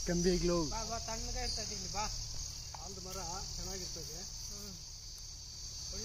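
Steady high-pitched drone of insects, with indistinct voices over it for most of the first five seconds.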